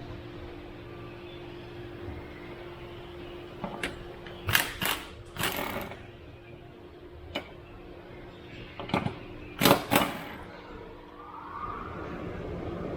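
A power wrench spinning bolts out in several short bursts, a cluster about four to five seconds in and another near ten seconds, with a steady low hum underneath.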